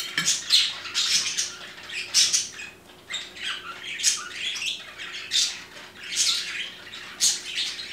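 A spatula scraping and stirring inside a blender jar in repeated, irregular strokes. The blender is switched off while thick batter is worked by hand to push down dry flour stuck on top.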